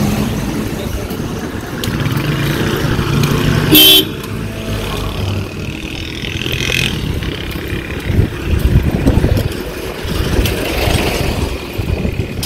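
Road traffic rumbling past, with one short, loud vehicle horn blast about four seconds in.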